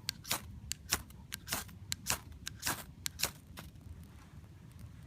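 Gerber ferro rod struck repeatedly with its scraper to throw sparks onto birch-bark tinder: a quick series of short, sharp rasping scrapes, about two a second, stopping about three and a half seconds in.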